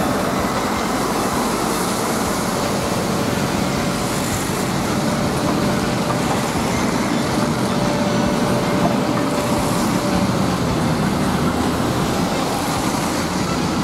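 Diesel engine and hydraulics of a long-reach demolition excavator running steadily as it works its crusher jaws on a warehouse wall. A faint steady whine under it fades out about ten seconds in.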